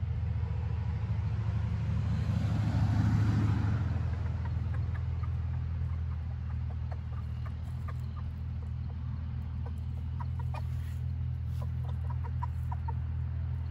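Silkie chicken clucking softly in short, scattered notes while foraging, over a steady low hum. A louder rushing sound swells and fades about two to four seconds in.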